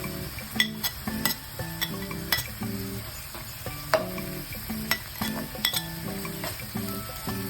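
Food sizzling as it fries in a pan, stirred with a utensil that clinks and scrapes against the pan at irregular moments.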